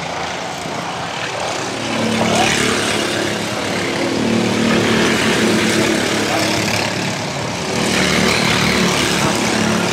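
Several go-kart engines buzzing together as a pack of karts passes on the track, growing louder about two seconds in and swelling again near the end.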